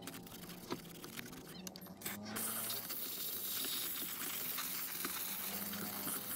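A pressurised nozzle hissing steadily from a little over two seconds in, after a few light clicks and taps.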